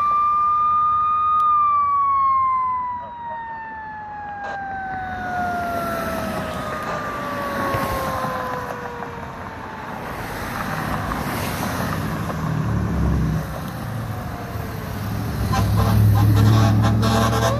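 Fire apparatus siren: one wail climbs to its peak about a second in, then falls slowly in pitch for several seconds, with a fainter falling wail after it. Near the end a heavy vehicle's engine rumble grows loud as traffic passes close, and another siren wail starts up high.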